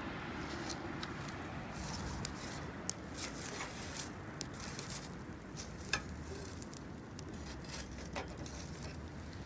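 Wood campfire crackling: irregular sharp pops and snaps over a steady low rumble, the loudest snap about three seconds in.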